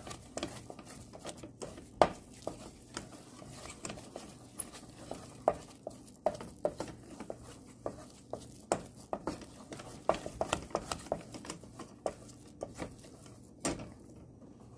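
Wooden spoon stirring and scraping thick choux paste in a stainless steel saucepan, with irregular knocks of the spoon against the pan, several a second. The flour-and-butter paste is being cooked over low heat until it forms a ball and pulls away from the sides.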